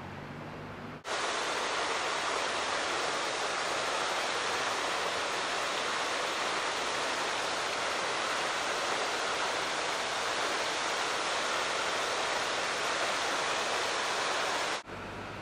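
Fountain water from a tall central jet and a ring of small jets splashing into its basin: a steady rushing hiss that starts abruptly about a second in and cuts off just before the end.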